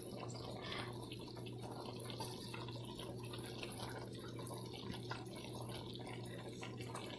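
Brown stew chicken simmering in its sauce in a pan: faint steady bubbling with many small pops, over a steady low hum.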